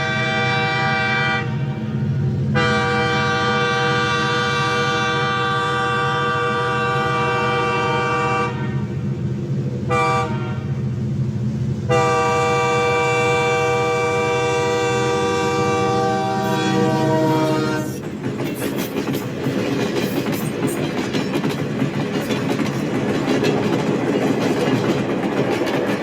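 Darjeeling Himalayan Railway toy train sounding its horn in long blasts: one ends about a second and a half in, then two long blasts of about six seconds each with a short toot between them, over the low rumble of the running train. After the last blast stops, the clattering of the coaches on the narrow-gauge track takes over.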